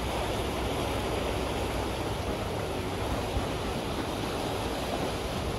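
Boat under way on a lake: a steady rush of water and wind, with a low engine rumble underneath.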